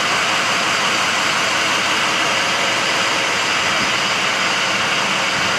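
Ford 6.0L Power Stroke V8 turbo-diesel idling steadily, an even racket.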